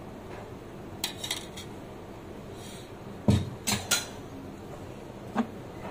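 Spoon and dishes clinking while a plate of chaat is being served: a few light clicks about a second in, three sharper knocks around the middle, and one more click near the end.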